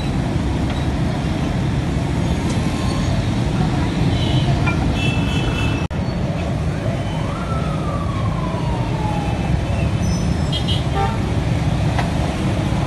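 Busy city street traffic: a steady rumble of engines with a few short horn toots and a passing whine that rises and then slowly falls.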